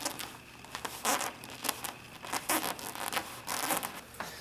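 A string of short rustling scuffs on a hard floor, about one or two a second: nylon clothing rustling and sneakers scuffing.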